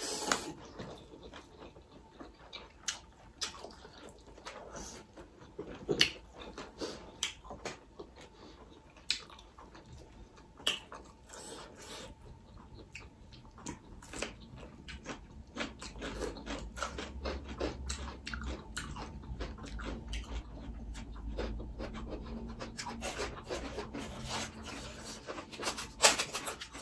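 Eating sounds close to the microphone: chewing, lip smacks and crunches, with fingers working through rice and curry. A louder crunching of papad comes near the end, and a low rumble sits under the eating for a few seconds in the middle.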